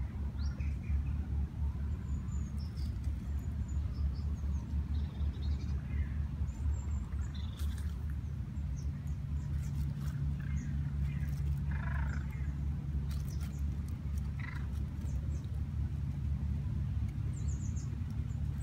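A steady low rumble with small birds chirping faintly now and then.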